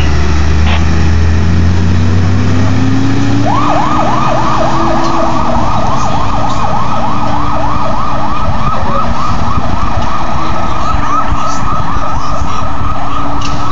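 Fire-rescue truck's engine running low and rising in pitch as it pulls away. About three and a half seconds in, its siren starts a fast yelp, several quick up-and-down sweeps a second, and keeps going steadily as the truck drives off.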